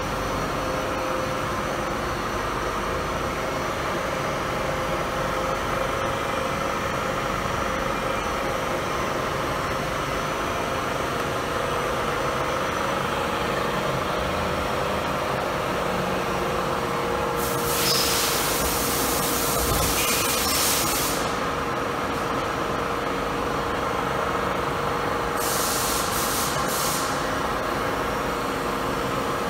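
Steady machinery hum with a faint steady tone under it. A loud hiss lasts about three and a half seconds past the middle, and a few short hisses follow near the end.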